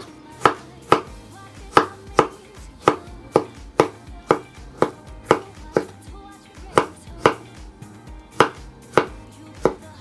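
Kitchen cleaver cutting a peeled tomato into chunks on a wooden cutting board. The blade knocks sharply on the board about twice a second, with a couple of short pauses.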